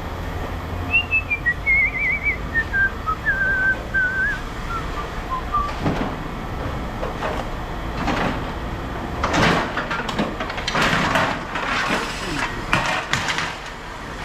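Someone whistling a short, wavering tune that falls in pitch over about five seconds. Then scrap metal clanks and rattles again and again as it is handled.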